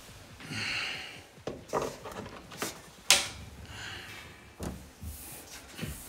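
Hands working around a desktop PC case and its cables: rustling with several light knocks, and one sharp knock about three seconds in.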